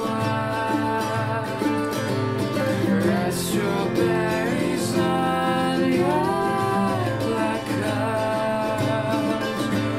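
Acoustic guitar and mandolin played together, with a man and a woman singing a duet over them.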